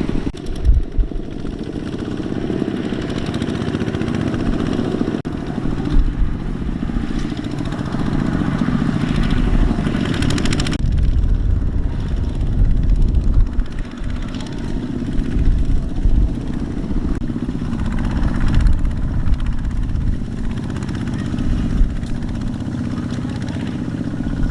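Single-cylinder diesel engine of a Kubota two-wheel walking tractor running steadily, its level swelling now and then.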